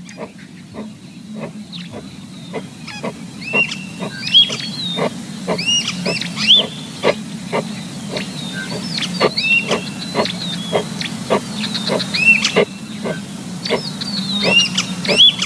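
Animal sounds: short high chirps in bursts over a steady low rumble, with a regular ticking about twice a second.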